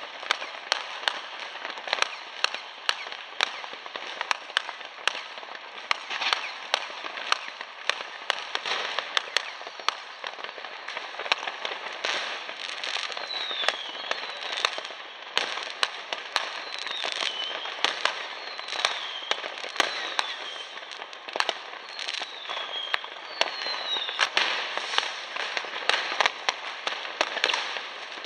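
New Year fireworks going off all around: a constant crackle with many sharp firecracker and rocket bangs. From the middle on come several short falling whistles.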